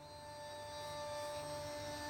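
A film score played through a Samsung HW-C451 soundbar and wireless subwoofer and picked up by a camera microphone: a sustained drone of held tones over a low rumble, slowly growing louder.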